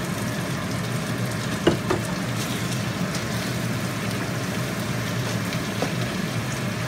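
Chicken pieces sizzling as they fry in a wok with onion, garlic and chillies, stirred with a wooden spatula, over a steady low hum. One sharp knock about a second and a half in.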